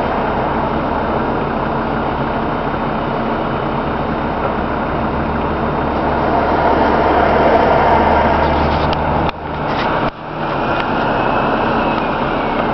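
Heavy-haulage tractor unit hauling a long trailer of concrete beams around a roundabout: a steady engine rumble with road noise that swells slowly, then drops away abruptly twice near the end.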